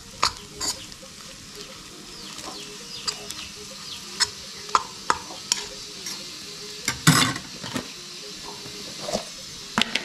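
A metal fork stirring scrambled eggs in a frying pan, its tines clicking and scraping against the pan again and again over a steady sizzle of the cooking eggs. The loudest scrape comes about seven seconds in.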